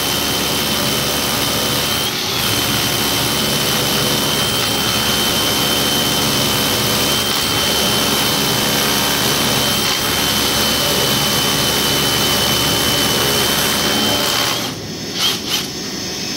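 DeWalt cordless rotary hammer drilling into a concrete floor together with a dust-extraction vacuum, a loud steady run with a thin high whine. Both stop about fifteen seconds in, followed by two short clicks.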